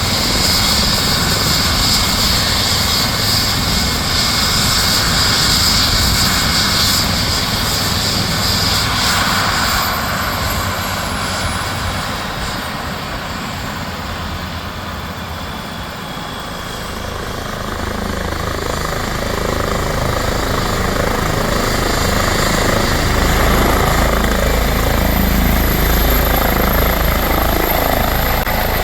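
Rescue helicopter's turbine and rotor running loudly, easing off in the middle, then building again near the end with a stronger low rotor beat and a rising high turbine whine.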